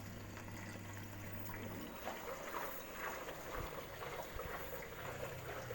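Water trickling and running, as into a washing machine being checked for its water supply. A steady low hum stops about two seconds in.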